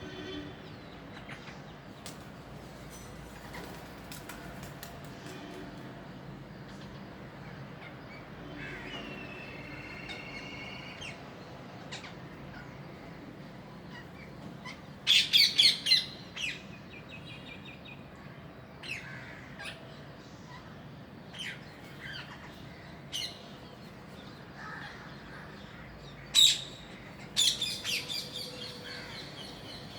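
Parrots calling: scattered softer chirps, with a quick run of four or so loud, harsh screeches about halfway through and another loud cluster of screeches near the end.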